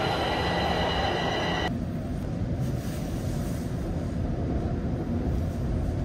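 TTC subway train at a station platform: a high-pitched whine of several steady tones over a rumble, which cuts off abruptly about two seconds in, leaving a steady broad rumbling noise.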